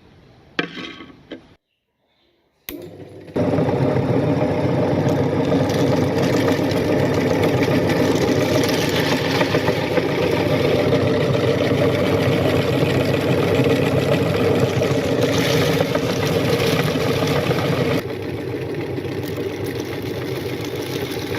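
Electric meat grinder's motor running steadily, starting abruptly about three seconds in after a short noise and a moment of silence, and getting quieter near the end.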